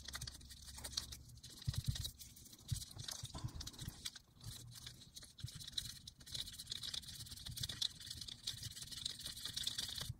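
Alcohol prep pad rubbing the metal wheels and plastic trucks of an HO scale Life-Like F7A locomotive: faint irregular scratching with small taps and clicks as the model is handled. The wheels are being wiped clean to cure poor electrical pickup.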